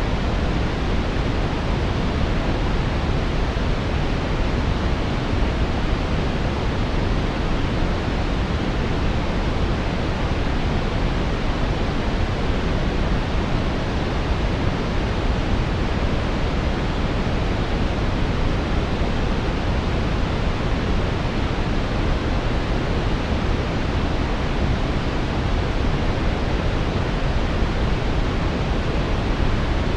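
Steady, unbroken brown noise, a deep even hiss weighted toward the bass, with no changes.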